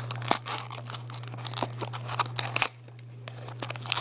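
A small cardboard ocarina box being opened by hand, with the plastic-wrapped instrument inside. Paper and plastic crinkle and tear with scattered clicks, and a sharp snap comes about two and a half seconds in. A steady low hum runs underneath.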